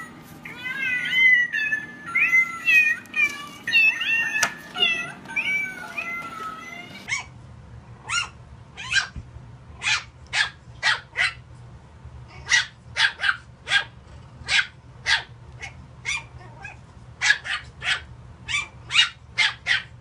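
A cat meows over and over for about the first seven seconds. Then a small puppy yips in a run of short, high-pitched barks, about one or two a second.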